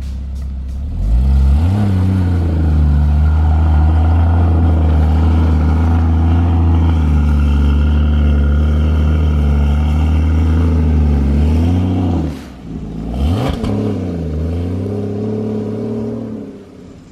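Porsche Cayman GTS's flat-six engine revving up and held at steady high revs while the car struggles for grip on powdery snow, going sideways on a hill. About twelve seconds in the revs drop, rise again briefly, then settle lower and fade.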